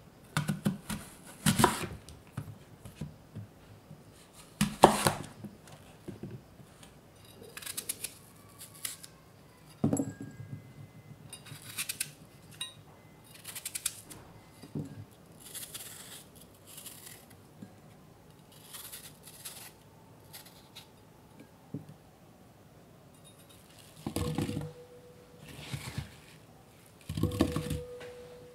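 Knife cutting fresh apples on a wooden cutting board: separate sharp chops and knocks of the blade on the board, with quieter scraping stretches between. Near the end, two heavier thuds with a brief clear ring as apple slices go into a glass bowl.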